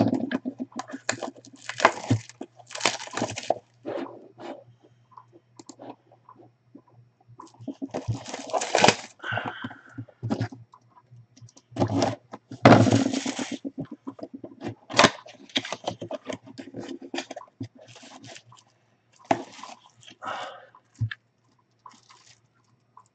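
Cardboard packaging of an autographed-baseball box being opened by hand: tearing and scraping of cardboard in several bursts, with small clicks and knocks of handling in between.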